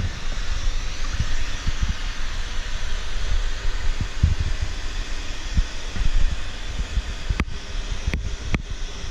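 ECOVACS DEEBOT N79 robot vacuum running: a steady whir of its suction fan and brushes with frequent low thumps, and three sharp clicks near the end.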